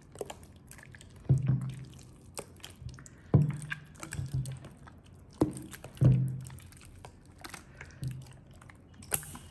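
Clear slime with pink liquid soap worked in being stretched, folded and squeezed by hand, giving a series of wet squelches and pops, roughly one every second or so.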